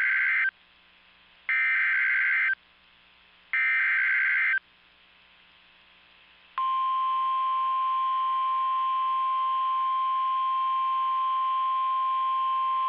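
Emergency Alert System SAME header: three identical bursts of warbling digital data tones, each about a second long and about a second apart. It is followed, about six and a half seconds in, by a steady single-pitch 1050 Hz weather-radio alert tone that holds on. Together they open a new alert, here a severe thunderstorm warning.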